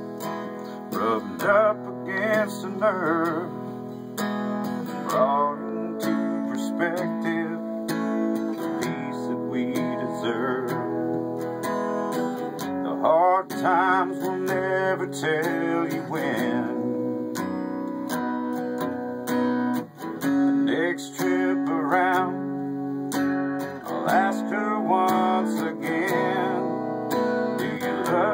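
Acoustic guitar strummed steadily in an instrumental break of a country song, with a higher melody line of bending, wavering notes over the chords.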